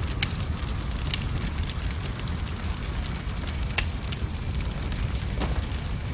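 Fire burning at the stake: a steady roar of flames with scattered sharp crackles and pops.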